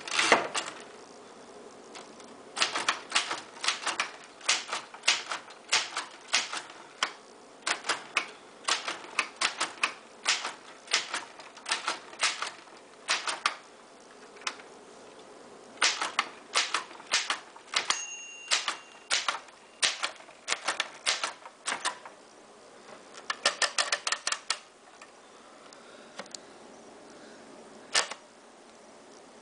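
Keys of a vintage Royal manual typewriter being struck, sharp clacks in quick runs with short pauses between them. A brief bell ring about halfway through, the end-of-line bell.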